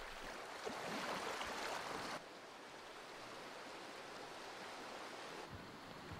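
Faint water noise: small waves lapping on a shingle lakeshore, cutting off abruptly about two seconds in to the quieter, steady rush of a mountain stream.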